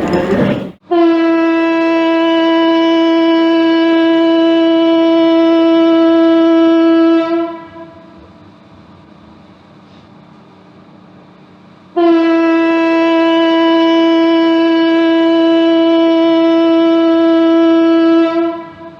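Factory siren sounding two long blasts at one steady pitch, each about six seconds, with a faint hum between them. A burst of loud machinery noise cuts off just before the first blast.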